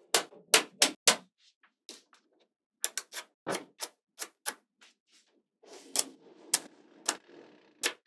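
Magnetic balls clicking as strips of them snap together: four sharp clicks in the first second, a scattered run of lighter clicks, then a soft rattle of balls with a few more sharp clicks near the end.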